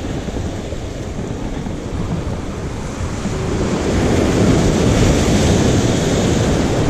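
Ocean surf breaking and washing against jetty rocks, with wind buffeting the microphone; the wash swells louder a little past halfway.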